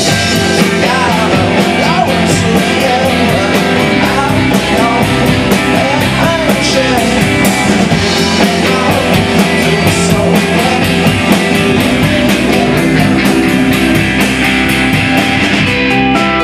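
Live rock band playing loud: electric guitar and bass guitar over a steady drum beat.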